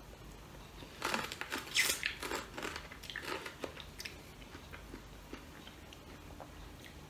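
Crisp bites into a piece of unripe green mango and close-up chewing: a run of crunches starting about a second in, the loudest near two seconds, thinning to softer chewing after about four seconds.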